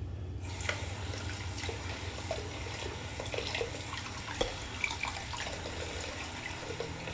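Bathroom tap running into a sink, the water hissing and splashing, turned on about half a second in. A low steady hum runs underneath.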